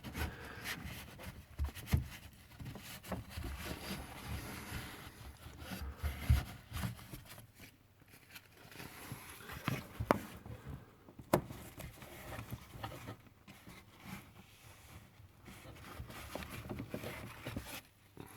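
Faint rubbing and rustling with scattered light clicks and knocks, two sharper clicks about ten and eleven seconds in: kitchen roll being worked around the plastic water well in the dishwasher's base.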